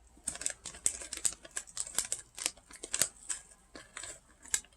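Crisp, irregular crunching of someone chewing spicy fried potato sticks, several sharp cracks a second.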